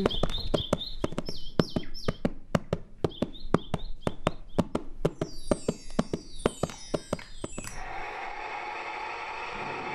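Horse hoofbeats clip-clopping about four times a second, with birds chirping high above them. About three-quarters of the way through the hoofbeats stop and a steady rushing noise takes over.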